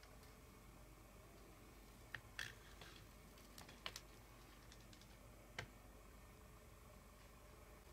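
A kitchen knife slicing a thick sausage on a plastic cutting board: a few faint, scattered clicks and taps as the blade comes through onto the board, between about two and six seconds in, over near silence.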